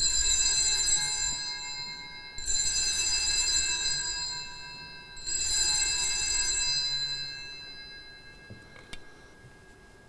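Altar bells rung three times, about two and a half seconds apart, each ring fading slowly: the Sanctus bells marking the elevation of the consecrated host.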